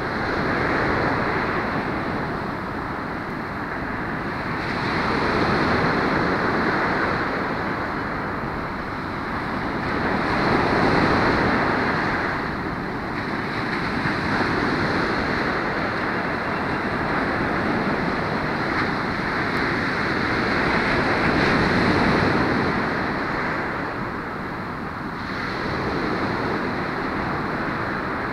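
Ocean surf breaking and washing up a sandy beach: a steady rush of water that swells and eases every few seconds as each wave comes in.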